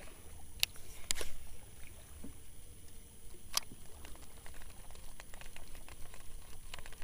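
Fishing tackle during a lure retrieve: a baitcasting reel and rod give a few sharp clicks, then a run of faint quick ticks from about five seconds in, over a low rumble of wind and water.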